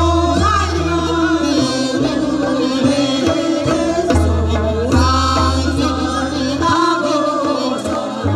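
Women singing a Korean folk song (minyo) into microphones over amplified instrumental accompaniment, the voices wavering with vibrato above a steady bass line.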